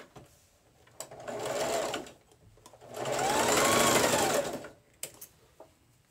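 Electric domestic sewing machine stitching through fabric in two short runs, about a second and then about a second and a half, the motor speeding up and slowing down each time. A couple of sharp clicks follow near the end.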